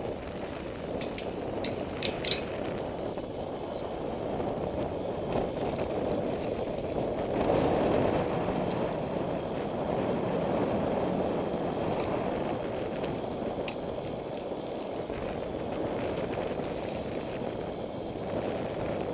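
Wind buffeting the camera microphone, a low uneven rushing noise that swells about seven seconds in. A couple of sharp clicks come about two seconds in.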